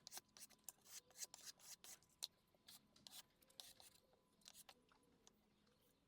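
Faint, irregular rubbing and scraping strokes on wood, a few a second.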